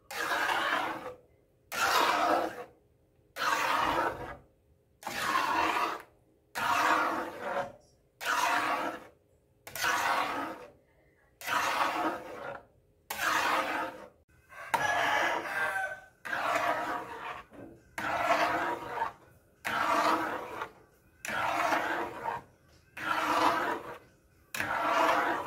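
Metal spoon scraping around a metal pan while stirring a thick, wet purple yam mixture (ube halaya). There is one long scraping stroke about every second and a half.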